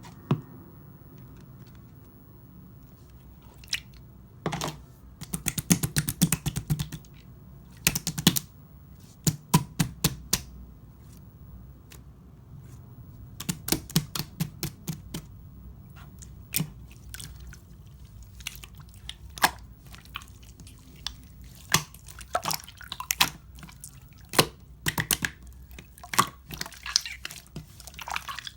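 Clear pearl slime being squished and pressed by hand, making bursts of quick sticky clicks and small bubble pops, with quieter stretches in between.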